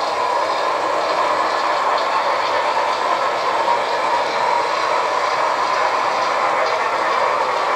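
HO scale model freight train cars rolling along the layout's track: a steady rolling clatter of small metal wheels on rail.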